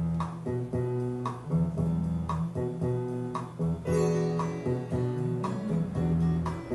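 Acoustic guitar music, plucked notes over strummed chords with a steady strum about once a second, played back over the stereo system.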